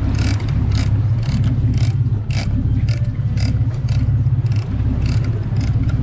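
A fishing boat's engine running steadily with a deep hum, with irregular sharp clicks and knocks over it, about two or three a second.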